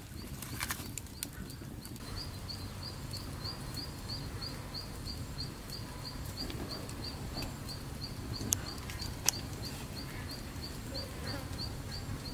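An insect chirping in a steady rhythm, about three short high chirps a second, starting about two seconds in, over a low steady rumble. Two sharp clicks come a little past the middle.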